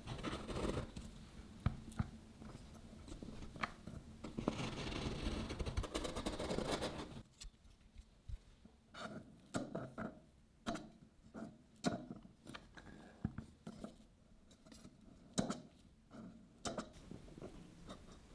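Thin tools run around the inside of an aluminium chiffon tube pan to loosen the baked cake: a continuous rasping scrape of a stick along the pan wall for about seven seconds, then a series of light clicks and taps as a metal spatula works around the pan's centre tube.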